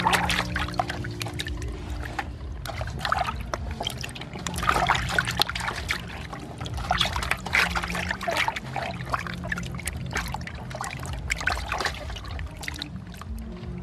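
Water splashing and sloshing in a steel basin as hands scrub and rinse frogs, with irregular splashes throughout.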